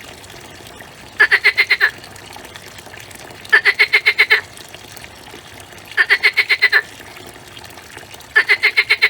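An animal call: a quick pulsed trill of about eight notes, repeated four times at even intervals of a couple of seconds.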